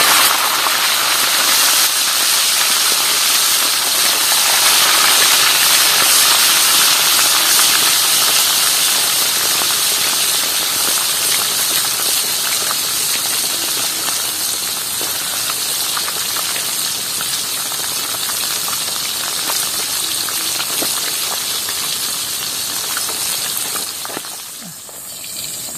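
Fish frying in hot oil in a wok: a loud, steady sizzle that slowly eases and dies down near the end.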